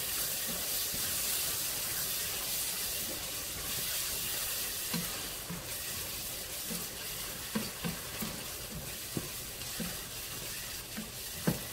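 Tomato, onion and berbere base for shiro sizzling in oil in a nonstick pot while being stirred with a wooden spoon. The spoon knocks against the pot several times in the second half, the sharpest knock near the end.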